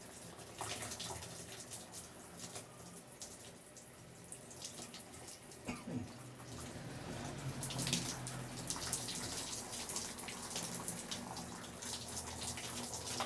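Shower water running, with many small splashes and drips throughout, busier in the second half. A steady low hum runs underneath.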